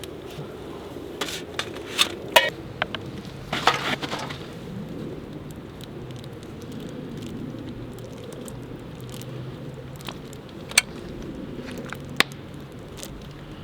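Wood fire crackling, with a cluster of sharp snaps and pops in the first few seconds and two single pops later, over a steady low rumble.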